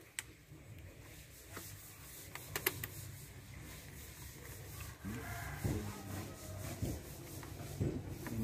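Hand work on parts beside a car's radiator: light clicks and knocks of plastic and metal with rubbing, including a quick cluster of clicks a couple of seconds in. A low hum rises in the second half.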